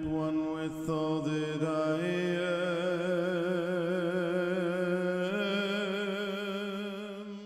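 Intro music: a sung mantra chant over a steady low drone, long held notes with a slow vibrato. The melody steps up in pitch about two-thirds of the way through, then fades out at the end.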